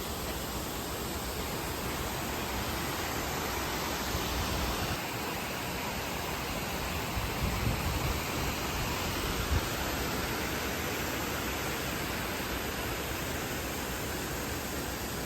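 Steady rushing of the Reedy River waterfall, an even, unbroken wash of water noise.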